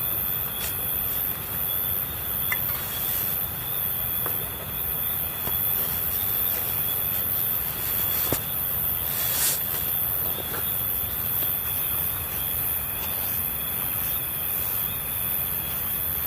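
Night insects, cricket-like, trilling in an even, high-pitched pulse about twice a second, over the steady low rush of river water, with a few faint ticks.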